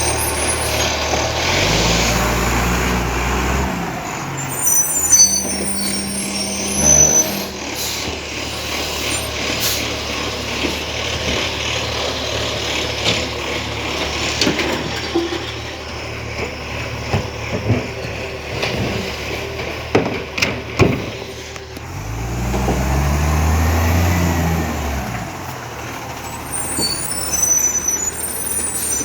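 Iveco ACCO side-loader garbage truck at work: its engine revs rise and fall twice, near the start and again about three-quarters of the way through, with sharp clanks and knocks in between.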